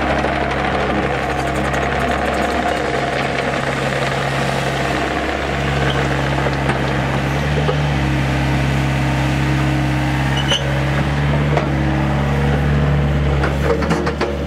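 2013 Volvo ECR88 compact excavator's diesel engine running steadily under hydraulic load while the upper structure swings back and forth, its note shifting slightly now and then. A few light knocks come near the end.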